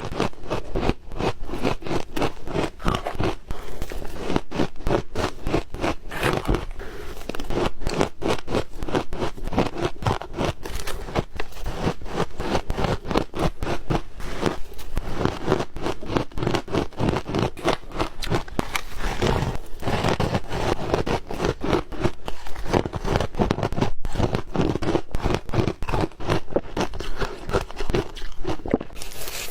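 Ice being bitten and chewed, a continuous run of sharp crunches and cracks packed closely together.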